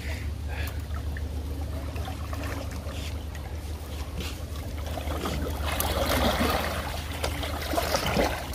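Water splashing and churning, building up over the last few seconds, as a hooked fish thrashes at the surface while it is brought in. A steady low rumble runs underneath.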